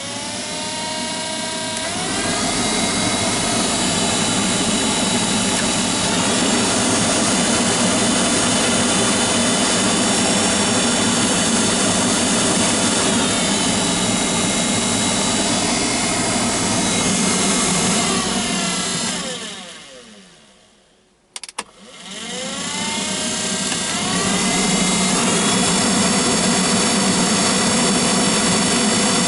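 GAZelle heater blower motor spinning up and running with a loud, steady whine. It winds down to a stop about two-thirds of the way through, gives a click, then spins back up. It is still noisy, which the owner puts down to the commutator under the brushes.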